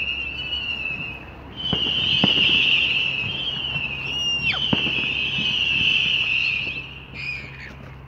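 Fireworks whistling: long, high, wavering whistles that stop and start again, one ending in a quick drop in pitch about halfway through, with a few sharp distant pops.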